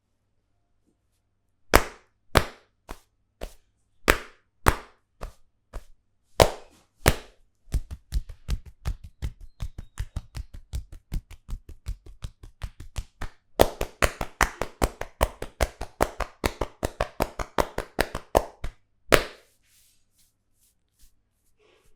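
Hands striking the head in percussive Indian head massage (champi) strokes: a few separate slaps at first, then a fast steady run of about four strikes a second that grows denser and louder, ending with one loud strike.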